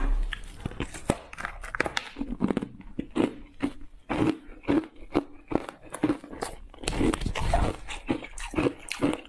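Ice cubes frozen with matcha tea powder being bitten and chewed: a dense run of sharp, irregular crunches and cracks, several a second.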